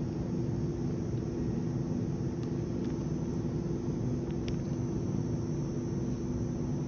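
Steady background rumble with a low hum and a few faint clicks.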